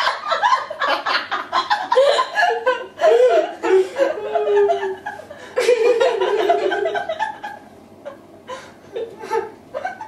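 Two women laughing together in quick bursts of laughter, dropping to quieter, sparser chuckles over the last few seconds.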